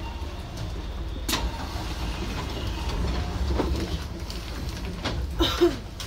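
Low steady rumble and hum inside the cab of a Keihan electric train standing at a station, with a sharp click about a second in and a short cluster of knocks and brief pitched sounds near the end.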